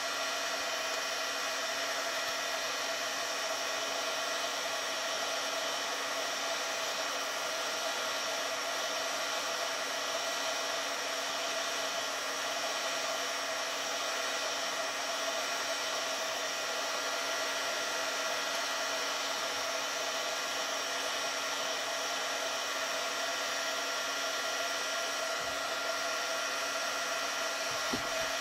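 DeWalt heat gun running steadily, its fan blowing hot air with a constant whir and a few steady tones. A Kydex sheet is held at its nozzle to soften it for folding.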